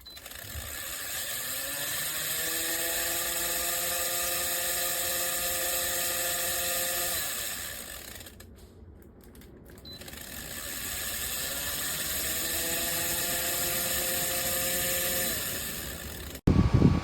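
VCK bladeless tower fan's motor winding up with a rising whine, running steadily for several seconds, then winding down. This happens twice. It is the noise the brand-new fan makes despite being sold as quiet. A sudden loud knock comes just before the end.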